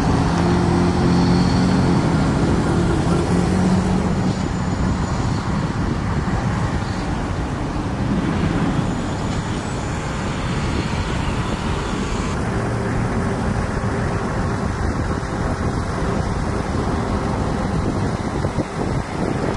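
Road traffic on a wide street: cars and trucks passing with a steady rush of engines and tyres. A passing vehicle's engine hum stands out for the first four seconds or so.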